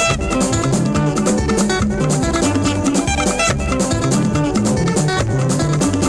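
Instrumental passage of an African band recording: electric guitar lines over a steady drum-kit and percussion groove with a moving bass line.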